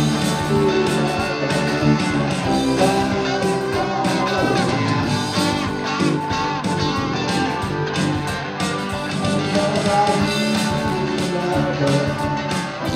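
Rock band playing live, led by a Stratocaster-style electric guitar playing lead lines with bent notes over the rest of the band.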